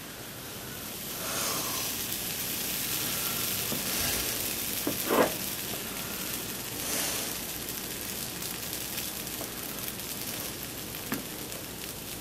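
Pancake batter sizzling as it is ladled into a hot non-stick frying pan, the sizzle swelling about a second in and then running on steadily. A brief louder sound about five seconds in.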